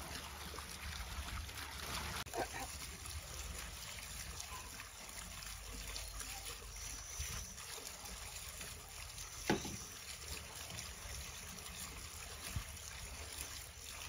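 Water trickling and sloshing over a steady low rumble, with scattered sharp clicks, the loudest about two-thirds of the way through.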